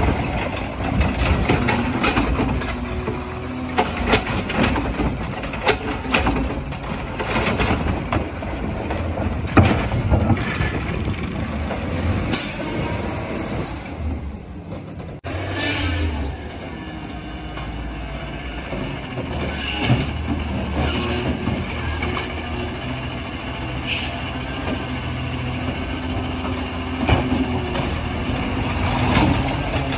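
CNG Peterbilt 320 garbage truck's automated side-loader arm lifting and tipping a plastic recycling cart, with repeated clatters and knocks over the running engine and hydraulics. About halfway through, this gives way to a steadier engine hum as the truck drives on.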